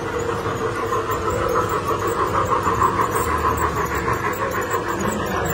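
Model electric train locomotive running along its miniature track beside the table as it delivers food: a steady whine with fast, fine clicking from the wheels on the rails.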